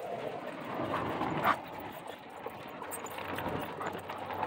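Dogs trotting on a gravel dirt road, their paw steps falling in a rough rhythm, with one brief louder sound about a second and a half in.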